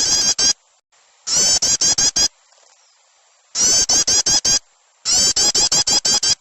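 Small birds' chirping calls played as a bird-lure recording: bursts of about a second of rapid, high, upswept chirps, four bursts with short silent gaps between them. The call is used to draw small birds down to the caller.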